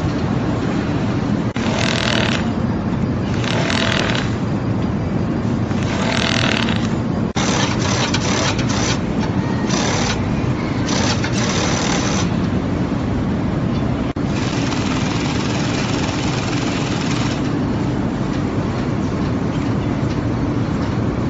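Industrial sewing machines stitching filter-bag fabric: a steady, loud machine hum with repeated short bursts of higher whirring as the machines run in spurts.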